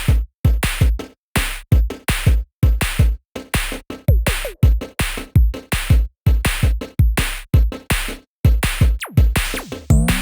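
Electronic background music with a steady drum-machine beat and deep kick drums, with a falling synth sweep about nine seconds in.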